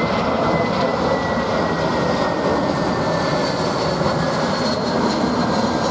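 Airbus A321-200 jet airliner on approach with gear down, its engines running with a steady loud rush and a high whine that slowly falls in pitch as it passes.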